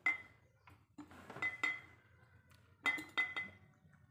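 Glass jar clinking as lime slices are dropped into it: a series of sharp clinks in small clusters, each with a brief ringing note from the glass.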